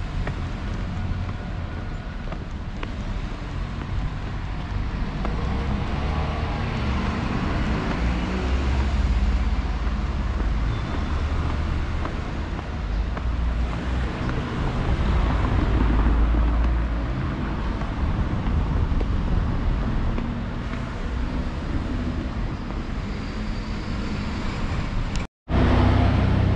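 Street ambience of road traffic with cars passing, under a heavy low rumble, cut by a brief gap of silence near the end.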